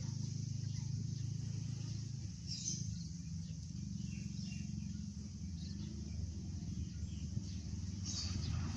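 Outdoor rural ambience: a steady low engine hum from distant traffic, with insects buzzing high and a couple of short bird chirps, one about two and a half seconds in and one near the end.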